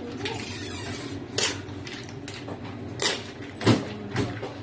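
Clam shells clacking against one another as hands move and press them in a plastic bucket, a few sharp separate clacks.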